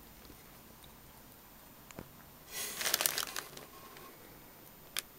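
Low room tone. About halfway through comes a second-long burst of rustling and crackling, with a sharp click just before it and another near the end.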